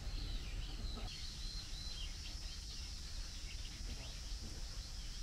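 Woodland ambience: small birds calling in short chirps over a steady high insect trill that sets in about a second in, with a low rumble underneath.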